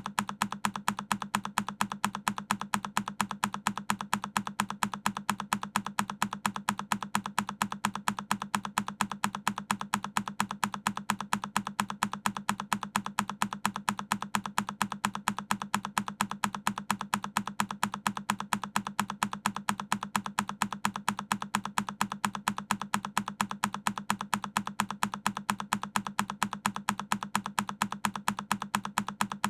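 A single key press on a Keychron K10 mechanical keyboard, looped: identical sharp key clicks repeating at an even, quick pace.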